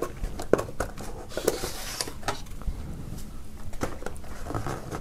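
Hands handling a cardboard box and its paper contents: scattered light taps and clicks of cardboard, with a brief rustle.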